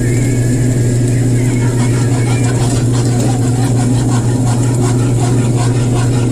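Wire whisk scraping and tapping around a steel pan of cheese sauce in quick repeated strokes, stronger from about two seconds in. Under it runs a loud steady low hum of commercial kitchen machinery.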